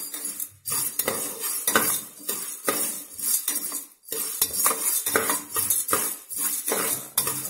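A metal spoon scraping and stirring dry whole mung beans around the bottom of a pressure cooker, the beans rattling against the metal in quick repeated strokes. The beans are being dry-roasted until brown.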